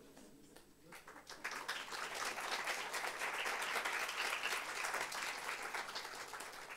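Audience applauding: the clapping starts about a second in, swells, then dies down near the end.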